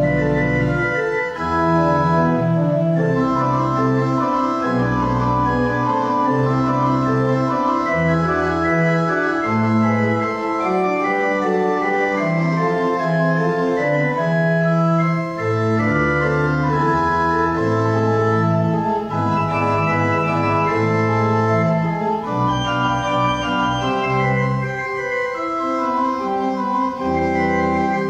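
Church organ playing sustained chords over a moving bass line with low pedal notes.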